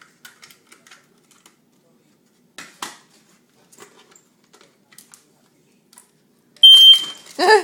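Smoke detector giving one loud, high, steady beep of about half a second near the end, after a run of faint scattered clicks and taps.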